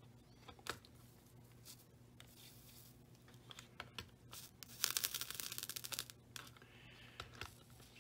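Soldering iron melting solder onto a fluxed seam of leaded glass panels: the flux sizzles and crackles in a brief burst about five seconds in, with a few light ticks before it. A low steady hum runs underneath.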